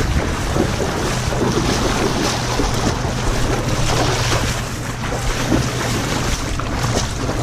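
Wind buffeting the microphone: a steady, loud rumbling noise.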